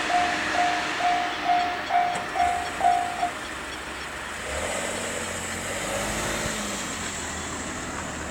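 Japanese railway level crossing's electronic warning bell ringing about twice a second, then stopping about three seconds in as the train has cleared the crossing. A low steady hum follows.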